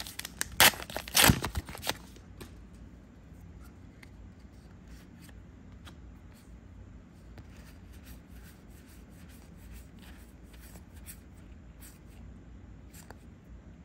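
Trading cards and their packaging being handled: a few loud rustling scrapes in the first two seconds, then soft ticks and slides as cards are flipped through one at a time.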